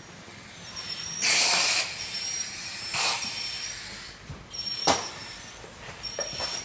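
Air hissing in bursts through a self-contained breathing apparatus (SCBA) face piece and regulator as a masked firefighter breathes: a long burst about a second in and a shorter one about three seconds in, then a sharp click near five seconds.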